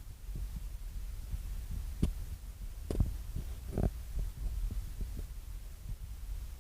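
Handling noise on a handheld phone's microphone: a steady low rumble and soft thumps, with two sharp clicks about two and three seconds in and a short scrape just after.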